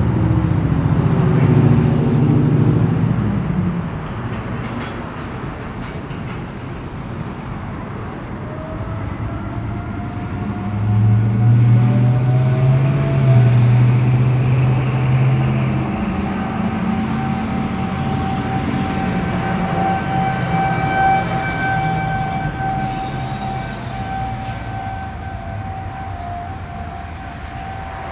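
Federal Signal 2001-130 outdoor warning siren winding up from about eight seconds in, its pitch gliding up to a steady wail that holds to the end. Street traffic runs beneath it: a vehicle passing loudly at the start, and a deep engine hum that is the loudest sound from about eleven to sixteen seconds in.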